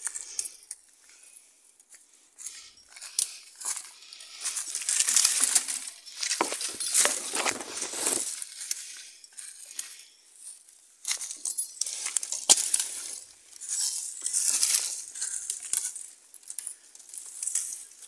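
Dry twigs and leaf litter crackling and rustling as someone pushes on foot through leafless scrub, in uneven bursts with scattered sharp snaps and crunches of footsteps.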